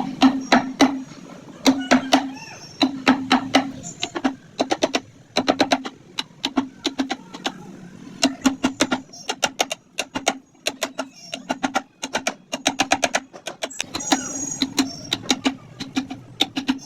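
Carving tools striking wood in quick runs of sharp taps, several a second, with short pauses between the runs.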